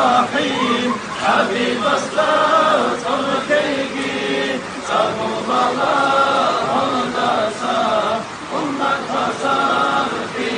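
Men's voices chanting together in unison, a mawlid devotional supplication in Arabic calling on the Prophet to save them from the fire, sung in long held notes that step in pitch.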